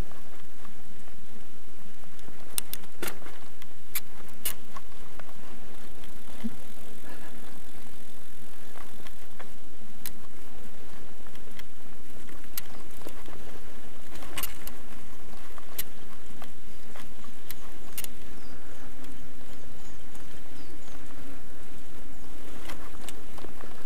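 Bicycle ridden over a bumpy dirt road: steady tyre and riding noise, with sharp knocks and rattles from the bike at irregular moments as it hits bumps and ruts.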